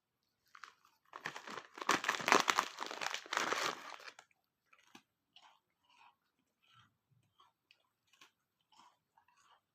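A dog crunching and chewing a hard treat: a loud stretch of crunching for about three seconds, then softer, scattered chewing crunches.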